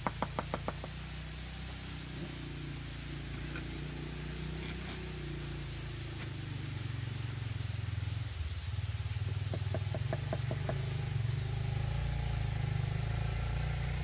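Quick runs of sharp taps as a trowel handle knocks terracotta tiles down into wet mortar to bed them, one run at the start and another about ten seconds in. A steady low hum runs underneath, growing a little louder in the second half.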